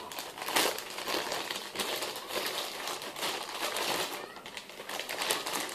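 Plastic packaging crinkling and rustling with scattered small crackles as a toy is pulled out of its wrapping.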